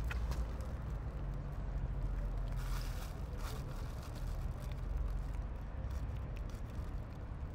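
Cats eating dry kibble close up, with scattered crunches and clicks of chewing, the densest run about halfway through, over a steady low rumble.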